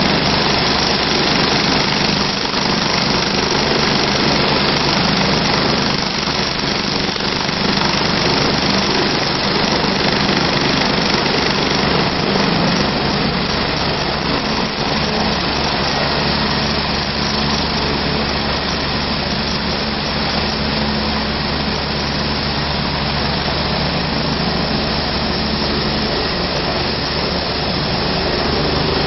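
Medical helicopter running on its helipad, engines and rotor at a steady level: ground running before lift-off.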